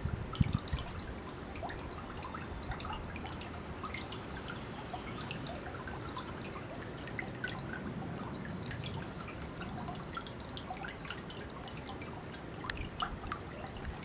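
Shallow stream trickling out of a concrete culvert over stones, a steady babble dotted with many small drips and plinks of water. A brief low rumble sounds in the first half second.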